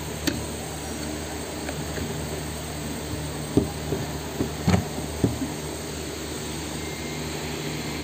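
Plastic parts of a handheld vacuum cleaner being handled and set down on a hard tabletop: a few light knocks, mostly in the middle, over a steady mechanical hum.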